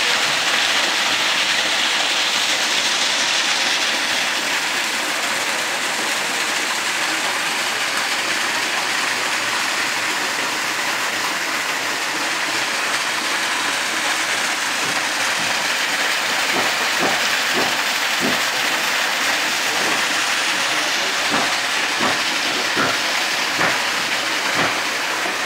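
Steady, loud rush of water pouring from a hose into a natural swimming pool as it is filled. A few short, sharp sounds cut through it in the last third.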